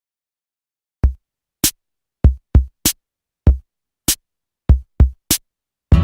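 Music intro: a sparse drum-machine beat of kick-drum and snare hits, starting about a second in. The fuller backing music comes in right at the end.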